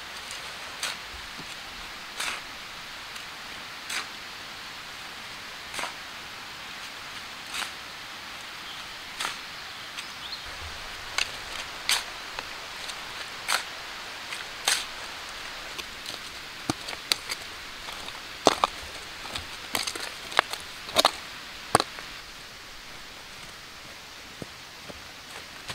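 Short-handled shovel striking and chopping into loose earth and stone, a sharp knock every second or two, then quicker and louder knocks, over a steady hiss.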